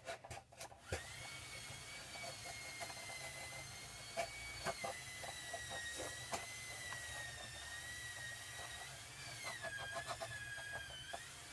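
Faint scrapes and clicks of a razor blade trimming cardboard, under a steady high-pitched whine that starts about a second in and wavers slightly in pitch.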